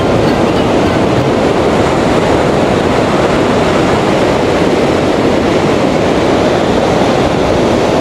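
Sea surf washing up the beach as the tide comes in: a loud, steady rush of water, with wind buffeting the microphone.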